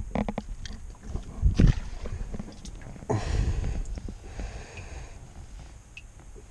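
Knocks and rubbing against a boat deck as fish are handled, with a loud thump about one and a half seconds in. Water sloshes as a hand reaches into the live well after a small largemouth bass.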